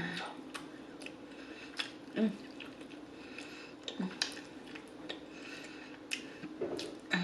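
Close-up chewing of extra-crispy fried chicken: irregular sharp crunches and wet mouth clicks, a few louder ones about two, four and seven seconds in, over a faint steady hum.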